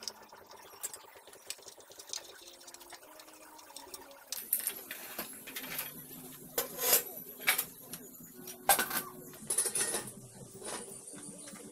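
Cast-iron sewing machine treadle stand being lifted and set down on a tile floor: a quiet start, then from about four seconds in a run of sharp metal clanks and knocks, loudest in the second half.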